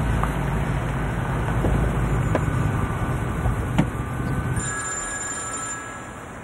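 Range Rover Evoque's engine running with a low rumble as the SUV pulls up, with a sharp click just before four seconds in as a door opens. The rumble drops away about four and a half seconds in.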